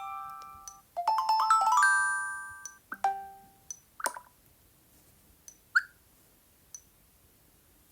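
Sony Xperia notification tones previewed one after another through the phone's speaker. A chime fades out in the first second, then a quick run of bell-like notes rings out and decays. A short tone follows about three seconds in, then a few brief clicks.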